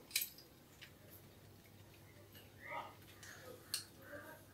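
Faint, scattered clicks and light taps of plastic hairbands being hung on the handle of an old badminton racket, the clearest about three quarters of the way in.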